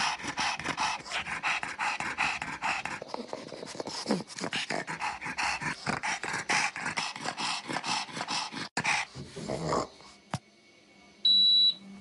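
A pug panting fast and rhythmically. The panting stops about ten seconds in, and near the end comes a single short, high electronic beep from the air conditioner.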